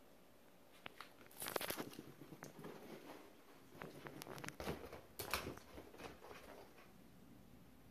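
Faint, irregular scrabbling, light patter and rustling from about a second and a half in until about five and a half seconds: a Yorkshire terrier puppy scrambles off its blanket and runs across the floor.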